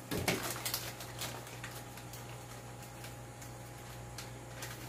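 Faint clicks and light rustling from handling sliced deli ham as it is laid on a wrap, mostly in the first second and a half, over a steady low hum.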